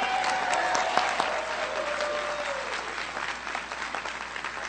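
Crowd applauding, with one long cheer from a single voice held for about two and a half seconds, sagging slightly in pitch before it stops. The clapping eases off gradually toward the end.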